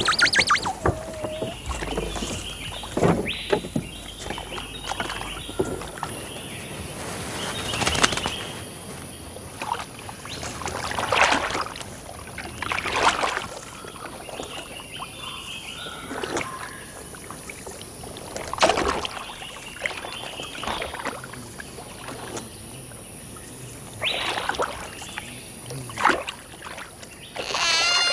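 River water splashing and swishing in irregular strokes every few seconds, with a few bird calls.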